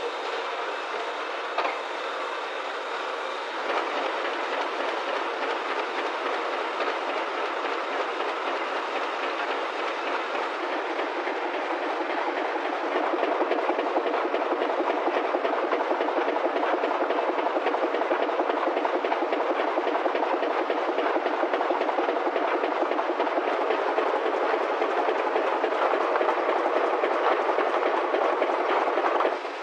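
Offset printing press running with a steady rapid clatter, growing louder about 13 seconds in.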